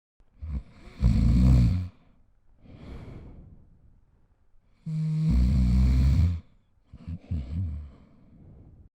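Snoring sound effect: two loud, low, rattling snores on the in-breath, each followed by a softer breathy out-breath.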